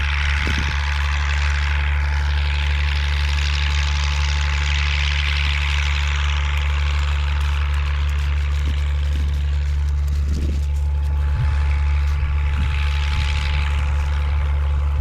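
Strong gale-force wind buffeting the microphone: a steady heavy rumble under a hiss that swells and eases with the gusts.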